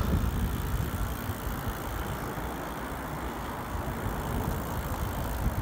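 Wind buffeting a phone microphone outdoors: a low, irregular, flickering rumble.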